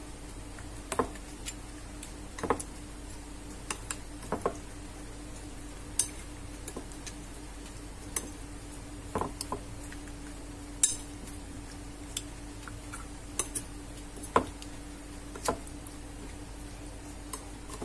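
Metal spoon clinking and scraping against a bowl as pieces of fish are turned in a thick marinade: about fifteen sharp clinks at irregular moments over a faint steady hum.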